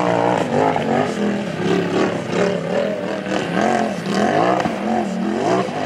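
Car engine revving, its pitch rising and falling again and again.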